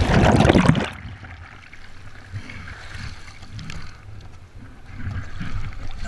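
River water splashing loudly close to the microphone for about the first second, then quieter sloshing with a few soft, low knocks.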